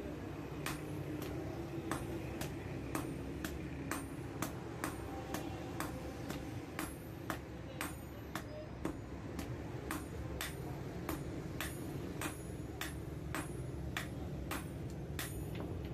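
Hand hammer striking red-hot file steel on an anvil: a steady run of sharp ringing blows, about two to three a second, over a steady low rumble.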